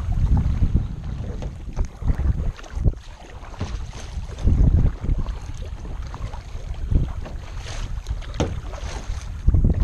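Wind gusting on the microphone, with paddle strokes splashing as a kayak is paddled into a headwind.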